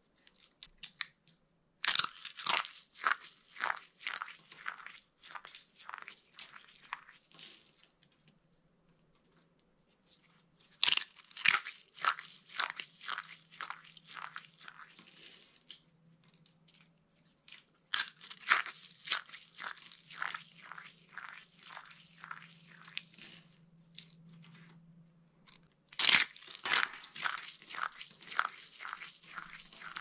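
Dry carved soap pieces crushed and squeezed by hand into flakes: dense, crisp crackling and crunching. It comes in four bouts, each starting sharply and thinning out over a few seconds.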